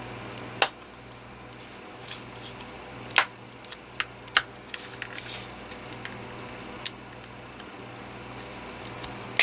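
Sharp plastic clicks and small ticks of a cordless phone handset's plastic case being handled and pried apart, with five louder snaps among them.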